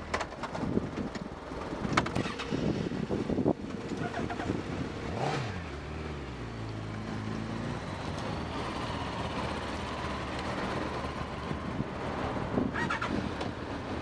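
Motorcycle engines idling and being revved as the bikes move off, with an engine note dropping about five seconds in and settling to a steady idle, plus a few sharp knocks.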